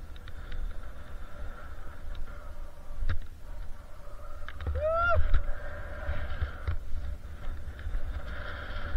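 An engine runs steadily at a constant pitch under a low wind rumble on the microphone. There are a few sharp clicks, and about five seconds in comes one short call that rises and then falls in pitch.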